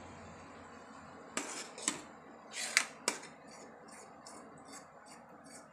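A spoon stirring thick mango pulp in a steel pot, knocking and scraping against the pot's side a few times about one to three seconds in, followed by a run of light, quick ticks.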